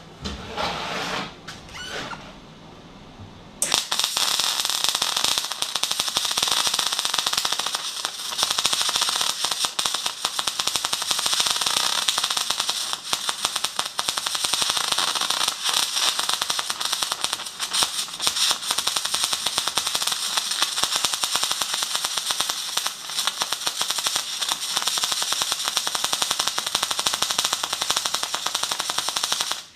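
MIG welding arc from a Magmate 150 welder laying a bead on heavy steel plate: a loud, steady, dense crackle that starts about three and a half seconds in after a few quieter knocks, and cuts off suddenly at the end.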